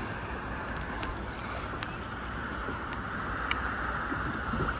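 Steady rush of wind and choppy sea water around a kayak, with a few faint ticks.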